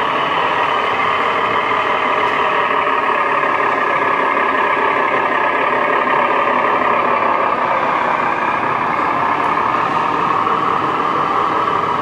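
RC scale semi truck's sound module playing a diesel engine sound as the truck drives, a steady, even drone with almost no deep bass.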